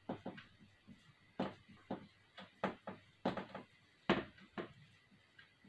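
Marker pen writing on a whiteboard: a run of short, irregular strokes and taps, the loudest about four seconds in.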